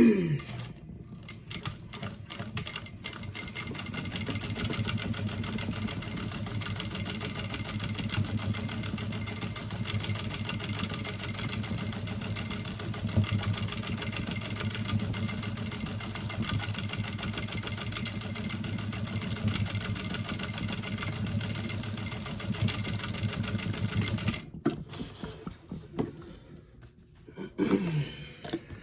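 Sewing machine stitching two pieces of seatbelt webbing together. It makes a few short starts, then runs steadily with rapid stitching and stops abruptly a few seconds before the end.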